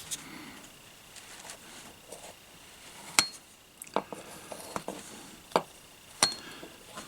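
Light metallic clinks and clicks of a tool against a metal socket-set case as body filler is worked onto it, about five sharp clinks in the second half.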